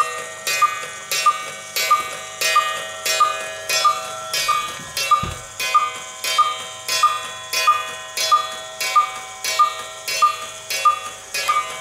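Cuckoo clock's cuckoo mechanism running on without stopping: a steady, even stroke about one and a half times a second, each with a short ring. The clock is faulty and keeps cuckooing until its weight runs down.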